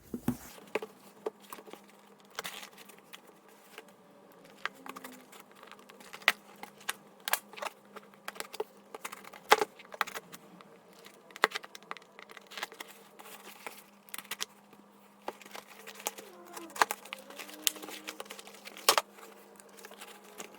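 A tightly wrapped shipping package being opened by hand: irregular sharp clicks, crackles and rustles of tape and packaging material, with a faint steady hum underneath.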